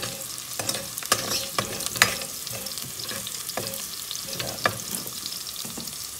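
Chopped onion and garlic sizzling in oil in a metal pot while a metal spatula stirs them, with sharp irregular clicks as the spatula scrapes and knocks against the pot.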